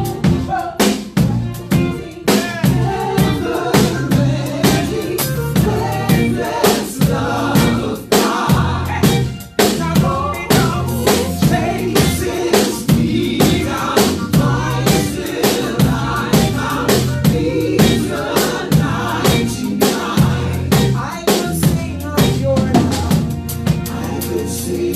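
Live band playing an instrumental break: drum kit with kick and snare/rimshot hits about twice a second, over bass and keyboard.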